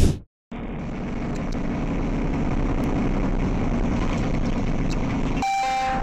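Steady engine and road noise of a truck cruising on a highway, heard from a dashcam in the cab, starting about half a second in after a brief silence. Near the end a short tone, about half a second long, briefly replaces the low rumble.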